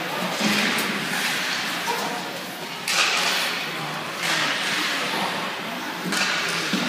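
Ice hockey play echoing around an indoor rink: skate blades scraping the ice and sticks and puck knocking, with four sudden louder scrapes or hits.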